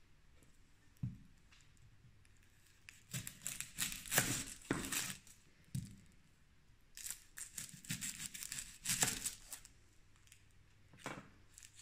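Dry, papery onion skin crackling and tearing as it is peeled off a brown onion, in two spells of rustling. A light knock about a second in.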